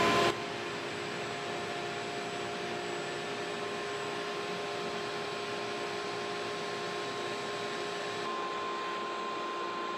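Shop-vac mini cyclone dust collector and a main dust collector running together: a steady rush of air with several steady motor tones. Both run normally, neither one outrunning the other.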